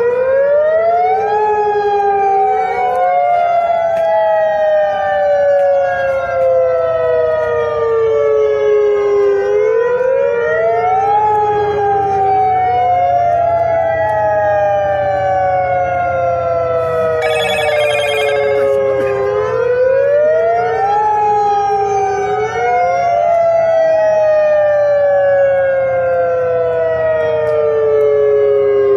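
Outdoor tsunami warning siren wailing, its pitch climbing quickly and then sliding slowly down, in cycles about every ten seconds. A fainter second wail overlaps it slightly out of step. Briefly, near the middle, a rapid high-pitched pulsing joins in.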